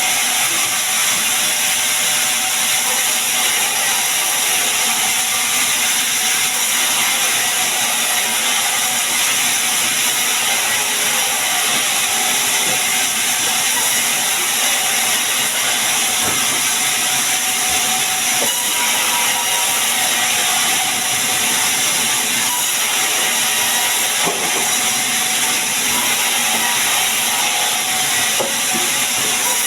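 Sawmill saw running and cutting sengon wood: a loud, steady hiss with no breaks.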